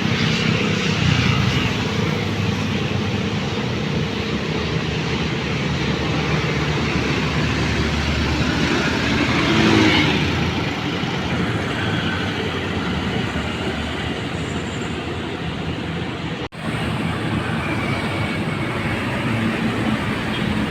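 Steady road traffic with engines running. One vehicle passes close a little before halfway, swelling and then fading. The sound drops out for an instant about three-quarters of the way through.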